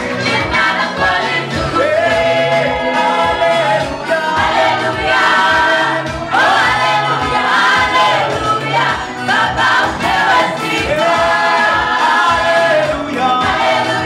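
Gospel choir of men and women singing a lively song over a steady beat.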